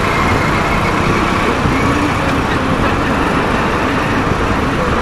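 Steady road traffic noise: motor vehicles running on a busy road, an even din with no sudden events.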